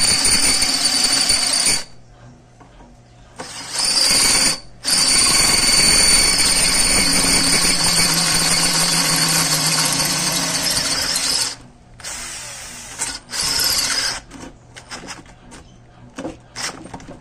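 WAP K21 21 V cordless drill-driver with a 10 mm bit boring into steel, its motor running with a steady high whine in bursts: it stops about two seconds in, runs briefly, runs again for about six seconds, gives one short burst, then only scattered clicks and scrapes follow. The bit cuts through the steel easily.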